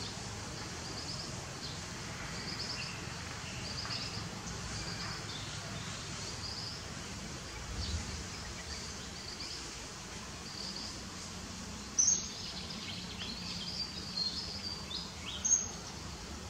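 Steady outdoor background noise with a short, high chirp repeating about once a second. Near the end come two louder, sharp high calls about three seconds apart.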